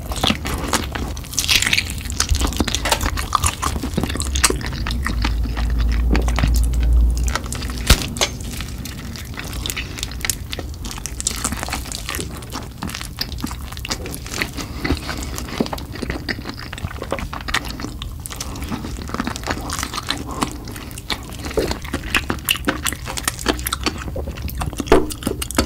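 Close-miked eating of spicy chicken: repeated bites, crunches and wet chewing with smacking clicks. A low rumble sits underneath for several seconds near the start.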